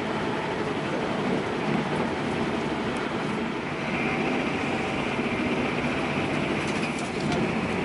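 Running noise inside an NSW TrainLink XPT passenger carriage as the train picks up speed: a steady rumble, with a higher hiss joining about four seconds in.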